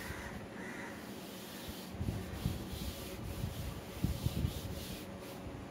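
Chalkboard duster rubbing back and forth across a chalkboard, wiping off chalk writing in uneven strokes, with a few dull knocks of the duster against the board.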